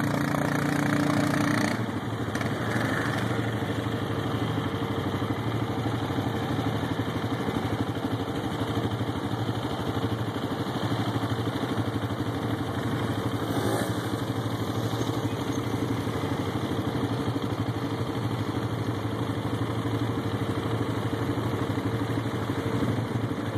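Honda Rincon ATV engine running steadily at low throttle as the quad churns through mud. The engine note is fuller for the first couple of seconds, then drops to a lower, even run.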